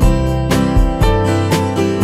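Background music: acoustic guitar strumming over a steady beat.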